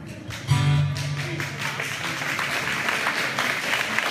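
An acoustic guitar chord strummed about half a second in and left ringing, with audience applause over it.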